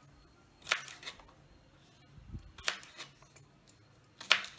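Kitchen knife chopping green beans against a wooden chopping board: three sharp knocks about two seconds apart, with a few fainter clicks between.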